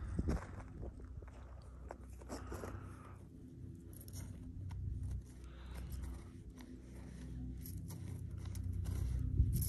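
Wind buffeting the microphone in a low, uneven rumble, with scattered light crunches and scrapes.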